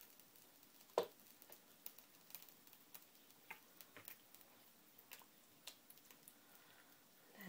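Faint, scattered clicks of a utensil against a bowl while a thick curry mixture is stirred, with one sharper click about a second in.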